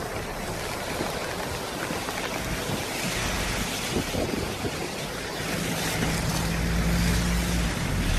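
Hurricane wind blowing hard through trees and rain, with gusts buffeting the microphone. A deeper rumble of the gusts builds from a little past halfway through.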